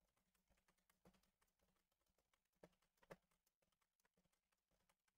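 Faint typing on a computer keyboard: a run of light key clicks, with a few sharper keystrokes about a second in and around three seconds in.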